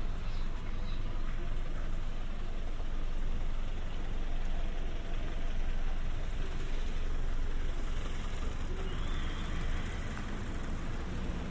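Steady outdoor street ambience dominated by the low rumble of vehicle engines and traffic, with no distinct sudden sounds.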